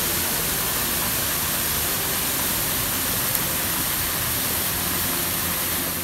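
Waterfall splashing down a rock face close by: a steady, dense rush of falling water.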